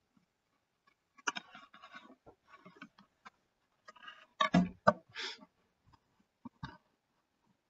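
Scattered clicks and short rustling noises from computer mouse and desk handling. The loudest is a brief cluster about four and a half seconds in.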